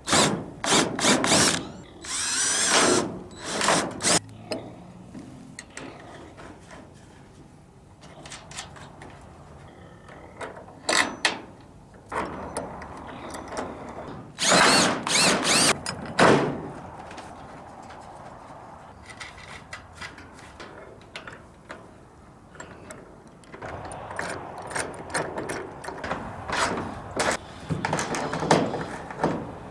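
Cordless drill boring holes through the metal-clad door rail in several short bursts, a second or two each, most of them in the first few seconds and a long one about midway. Near the end come many small metallic clicks as the carriage bracket and bolts are fitted and tightened.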